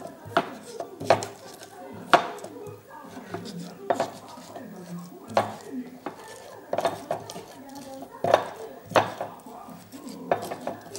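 Pestle pounding and grinding shallots and garlic in a mortar: sharp knocks at irregular intervals of about a second, with softer scraping between them.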